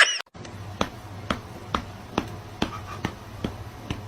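Sharp, regular taps or clicks, about two a second, over a low steady hum.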